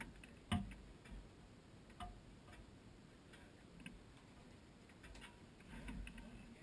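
Quiet, with a few scattered sharp clicks and knocks; the loudest comes about half a second in and smaller ones follow every second or two.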